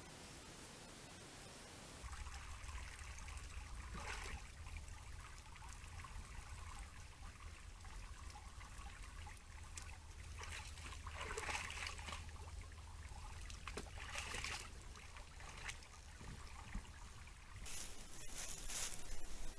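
Red deer stag wading in a shallow woodland pool: water trickling and splashing, with a few louder splashes as it moves, over a steady low hum. Near the end, rustling in dry fallen leaves.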